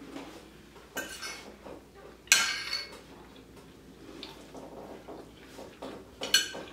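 Eating utensils clinking and scraping against dishes during a meal: three sharper clinks with a brief ring, the loudest about two seconds in, among softer handling noises.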